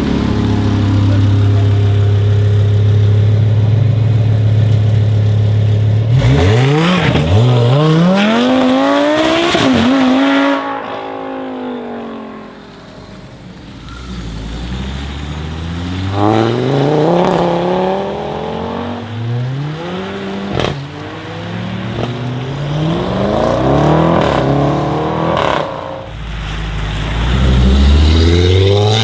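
Audi RS3 Sportback 8V's turbocharged five-cylinder engine through a full Armytrix exhaust. It runs with a steady drone for about six seconds, then accelerates hard, its pitch climbing and dropping back at an upshift, and eases off around ten seconds in. From about fourteen seconds it accelerates again through several quick upshifts, each one a rising sweep that restarts lower.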